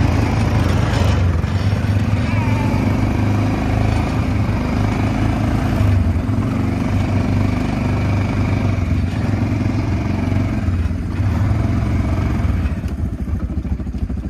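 Kawasaki Prairie ATV's single-cylinder four-stroke engine running steadily under way on the trail, easing off slightly near the end.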